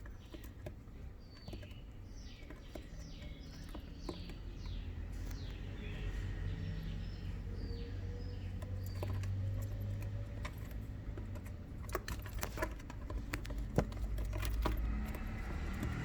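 African hedgehog chewing crickets: scattered small crunching clicks, thickest in the last few seconds, over a low steady hum.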